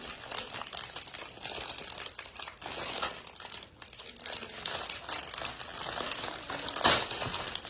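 Packaging being handled and pulled open by hand during an unboxing: continuous crinkling and rustling with irregular crackles, and one sharper, louder crackle about seven seconds in.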